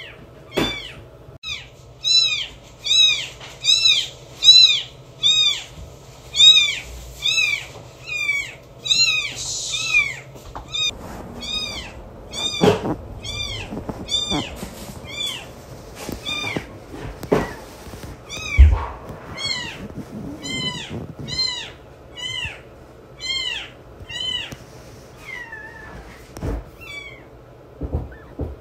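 Very young bottle-fed kitten mewing over and over: short, high, rising-and-falling cries, nearly two a second, growing weaker near the end. A few soft knocks come in among them.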